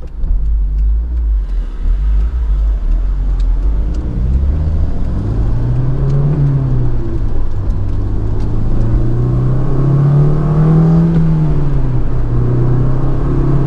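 Honda S2000 AP2's 2.2-litre four-cylinder engine, breathing through an aFe Takeda intake, pulling under acceleration, heard from inside the cabin. The engine note climbs about four seconds in, then rises and falls a few times as the car speeds up and eases off.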